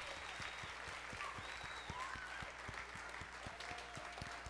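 Congregation applauding: many people clapping, slowly dying away.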